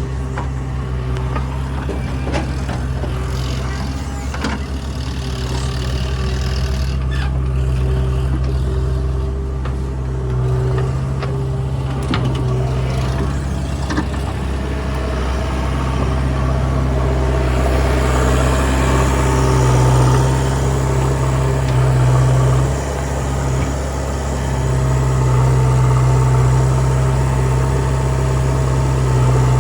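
Heavy diesel engine running steadily under load, growing louder and busier in the second half, with a few sharp knocks in the first half.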